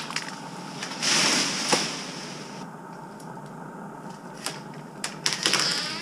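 Hand-powered pole pruning tool cutting a branch high in a tree: one loud rasping scrape about a second in, with scattered sharp clicks, and a cluster of clicks and rustling near the end.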